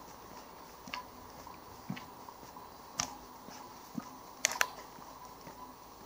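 Footsteps of a person walking, about one step a second, with two sharp clicks in quick succession a little past the middle.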